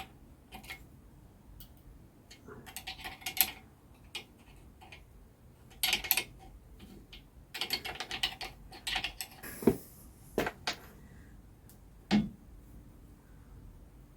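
Hand tools and metal parts clicking and clinking in quick clusters while the kickstart and gear lever come off a BSA Bantam engine, with a few heavier single knocks near the end.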